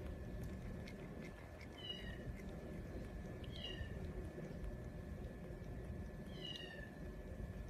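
Bottle-fed kitten giving three short, high mews, each falling in pitch, spread through the few seconds, with faint clicks in between.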